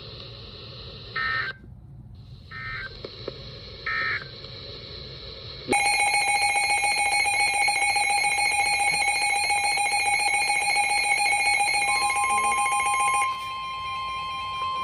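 Emergency Alert System signalling: three short bursts of SAME digital data tones about a second and a half apart over background hiss. About six seconds in, a loud steady EAS alert tone starts. Near the end a second single steady tone comes in as the first one stops.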